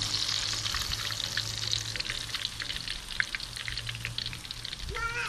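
Breaded ladyfish fingers deep-frying in a pan of hot oil: a steady sizzle with many small crackles and pops.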